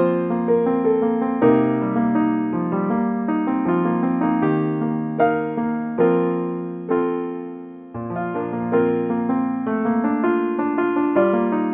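Background piano music: a gentle melody of struck notes that fades briefly about two-thirds of the way through, then picks up again.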